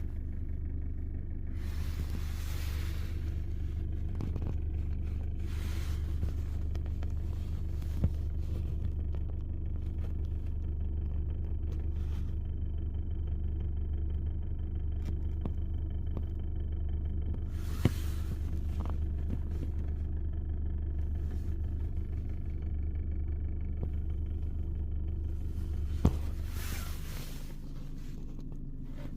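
BMW engine idling, heard from inside the cabin, with the rattle at idle that this car has. A steady low hum runs throughout with sharp clicks about three times, and the hum drops a little near the end.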